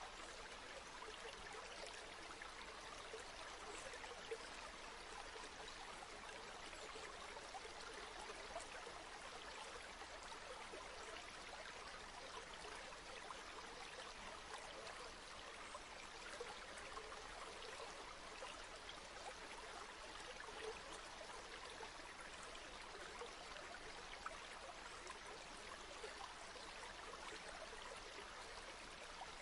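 A river flowing over stones: steady, faint babbling and trickling water with small splashes throughout.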